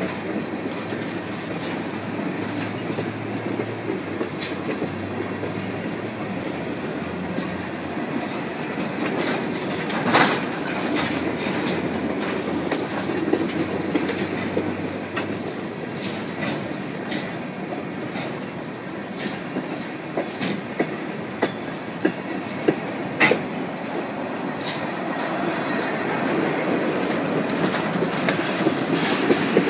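Freight train cars rolling past: a steady rumble of wheels on rail, with one loud sharp clank about ten seconds in and a string of sharp knocks a little past twenty seconds.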